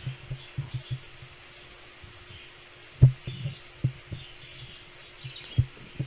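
Faint telephone-line background with a steady low hum and a scattered handful of dull low thumps, the loudest about three seconds in.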